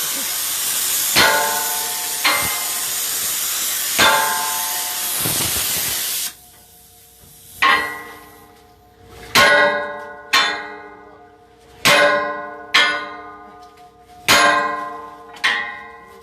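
Hammer blows on metal while a ship's propeller is being fitted. Each strike rings on with a clear metallic tone that fades over about a second. For the first six seconds a steady loud hiss covers the blows, then cuts off suddenly, leaving about seven ringing strikes.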